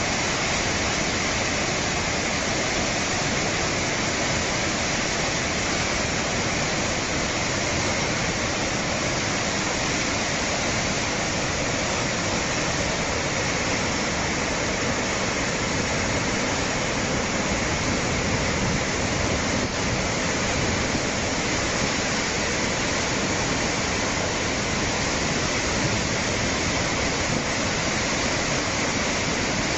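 Muddy floodwater rushing in a torrent past concrete channel walls: a steady, dense rushing noise with no breaks.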